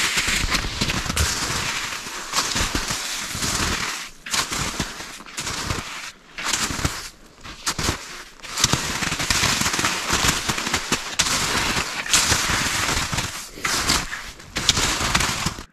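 Footsteps of a person walking through forest undergrowth, with twigs and brush crackling underfoot and against the clothing, dropping away briefly a few times.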